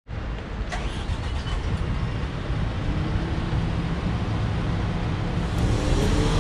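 Heavy diesel earthmoving machinery running steadily, with a sharp click about a second in. An engine note comes through about halfway and rises in pitch near the end as the engine revs up.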